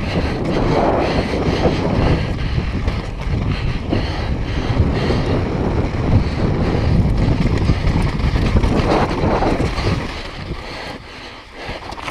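Wind rushing over the camera microphone, mixed with tyre noise on loose dirt and the rattle of a downhill mountain bike over rough, rocky ground, with many small knocks. It quietens about ten seconds in.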